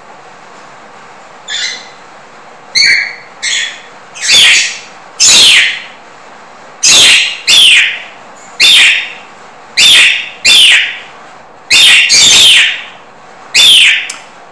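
A bird calling loudly over and over: about a dozen harsh calls, each sliding down in pitch, many of them in quick pairs. Steady room hiss lies underneath.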